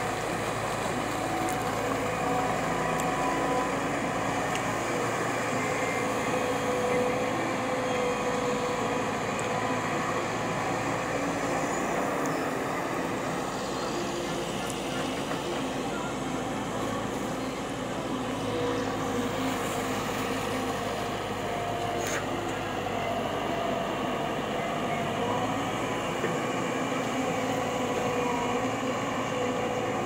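Diesel engine of a JCB tracked excavator running steadily as it digs, with a constant, even hum held at several pitches.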